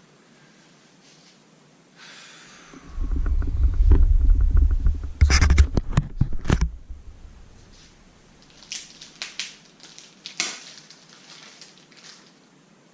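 Handling noise from unpacking a laptop: a few seconds of heavy low rumbling knocks, then a quick run of sharp clicks, and later scattered light taps and clicks as things are moved about.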